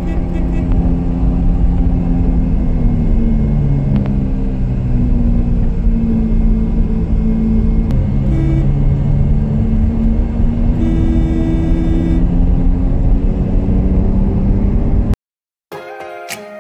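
Inside a moving Ford car: steady engine and road rumble while driving, with a few held higher tones over it, cutting off suddenly near the end.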